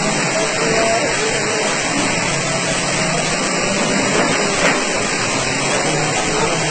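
Strong storm wind rushing, a loud steady wash of noise, with faint voices under it.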